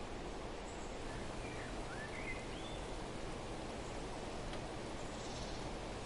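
Small songbird chirping faintly a few times, short rising and falling notes about a second and a half to two and a half seconds in, then a brief high trill near the end, over steady outdoor background noise.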